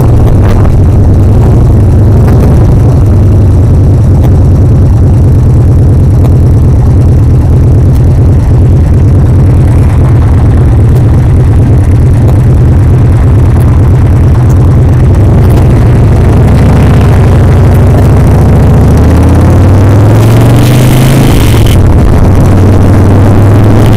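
Big Dog motorcycle's S&S V-twin engine running under heavy wind buffeting on the microphone; near the end the engine pitch climbs as the throttle is opened, then settles. Under load it carries an annoying vibrating sound whose cause is unknown.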